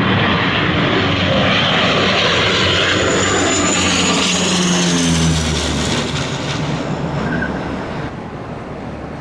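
Airliner passing low on approach, its engines loud, their pitch dropping as it goes by about halfway through, then fading away.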